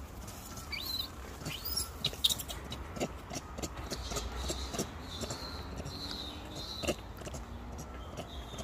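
Macaques calling: short high squeaks rising in pitch in the first two seconds, then a thin high squeal held for a few seconds from about halfway. Scattered sharp clicks run through.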